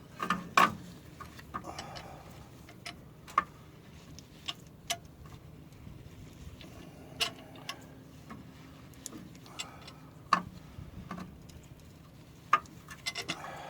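Irregular sharp metal clicks and knocks of hand tools and a C-clamp being worked against a brake caliper to push the caliper pistons back. The loudest knocks come about half a second in and again around ten seconds in.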